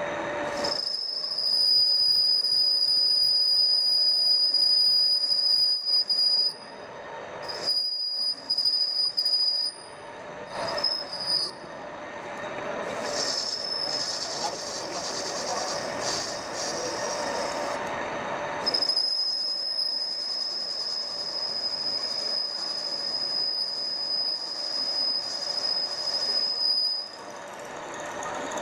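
Manual lathe cutting a square thread in steel: the cutting tool gives a steady high-pitched squeal in long stretches, breaking off several times midway and stopping shortly before the end, over the lathe's running noise.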